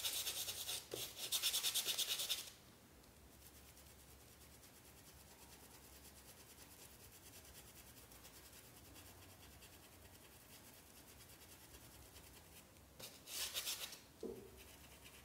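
Paintbrush rubbing paint into a cotton dish towel through a stencil: brisk scratchy rubbing for about two and a half seconds, then only faint brushing, with another short burst of scratchy rubbing about a second before the end.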